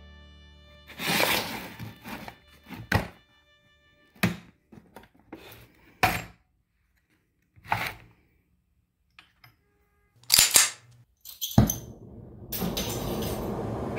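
A series of sharp clicks and clunks as a hard plastic case is unlatched and opened and brass oxy-acetylene torch parts are handled. About twelve and a half seconds in, the torch is lit on acetylene alone, and a steady loud rush of burning gas takes over.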